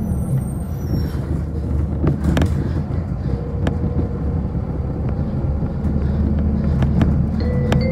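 City bus heard from inside the cabin while driving: a steady low engine hum with road noise, and a few sharp rattles or clicks from the bodywork.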